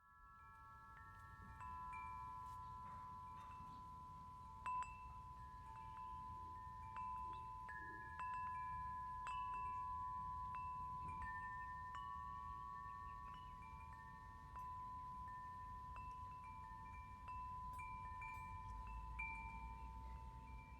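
Wind chimes ringing softly, several metal tones struck every second or so and left to ring on over one another, above a faint low rumble.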